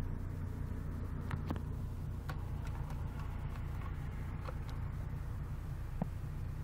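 Toyota Paseo's 1.5-litre 16-valve 5E-FE four-cylinder idling steadily with a holed exhaust, a low drone heard from inside the cabin. A few light clicks sound over it.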